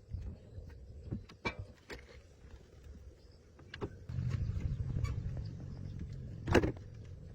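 Scattered metallic clicks and knocks, then a motor runs with a steady low hum for about three seconds, ending with one loud clack.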